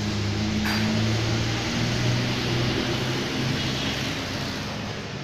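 Homemade cement mixer driven through a car's rear axle differential, running empty: a loud, steady mechanical drone with a low hum.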